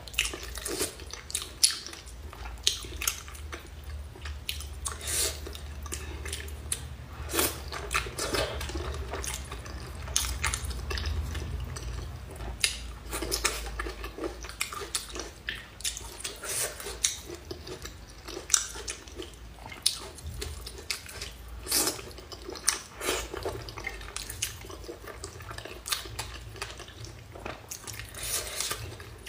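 Chewing and lip smacking while eating chili-oil malatang with chopsticks: irregular wet smacks and clicks that keep coming throughout.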